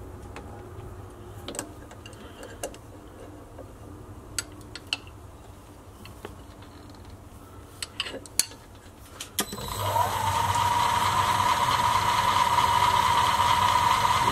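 A few sharp metal clicks and taps as a part is secured in a mini-lathe's four-jaw chuck. About nine and a half seconds in, the lathe motor starts, its whine rising briefly and then holding steady as the chuck spins.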